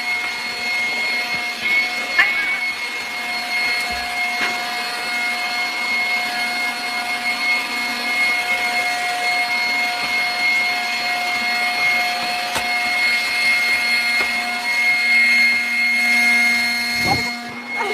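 Stick vacuum cleaner running steadily, its motor giving a high, even whine over a rushing hiss, with a few light knocks.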